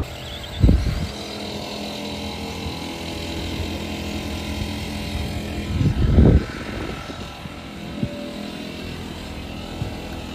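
Electric RC cars running on a track: a steady motor whine, with two heavy low thumps, one about a second in and one around six seconds.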